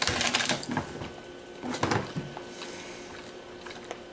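A bite into a Pop-Tart toaster pastry and the start of chewing: a dense run of crisp crackles in the first half-second and another short run about two seconds in.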